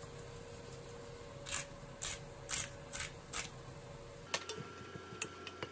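Salt being shaken into a pot of ground beef: five quick shakes about half a second apart, followed near the end by a few faint clicks as pepper is added.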